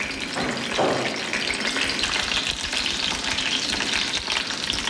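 Cauliflower florets and zucchini sizzling in olive oil in a wok, a steady frying hiss.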